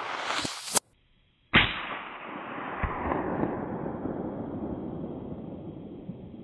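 A rising whoosh cut off by a sharp click, then a brief silence. Then a single loud bang with a long, slowly fading rumble, from a suppressed .223 rifle shot.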